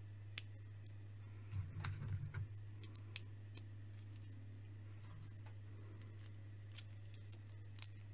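Faint, scattered clicks of small plastic Lego-compatible bricks being handled and pressed together, with a short run of soft knocks about two seconds in. A steady low hum sits underneath.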